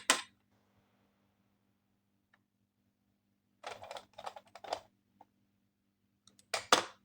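Hands handling plastic toy pieces: short clusters of clicks and taps, one just after the start, a longer run about four seconds in and a last pair near the end.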